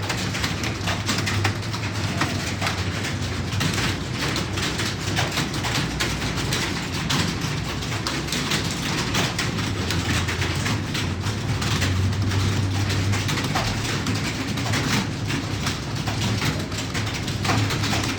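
Computer keyboard typing: rapid, irregular key clicks over a steady low hum.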